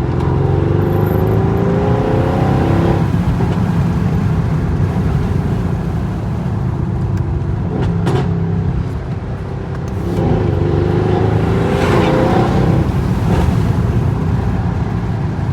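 Mercedes-AMG GLS 63's twin-turbo V8 exhaust rumbling, revved up twice with a rising pitch, at the start and about ten seconds in. A few sharp pops crack out of the exhaust, the clearest about eight seconds in.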